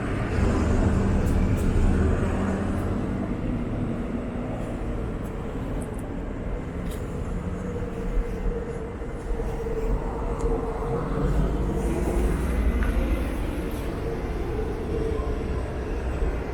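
2016 Honda CBR400R's 399 cc parallel-twin engine running through an aftermarket US Yoshimura slip-on silencer, a little louder in the first couple of seconds and then steady.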